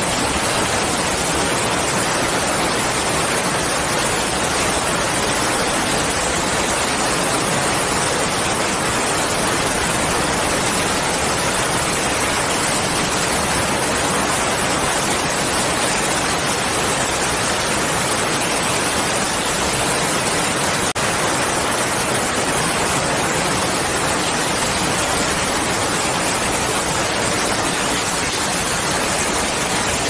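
Steady heavy rain: a loud, even hiss that never changes.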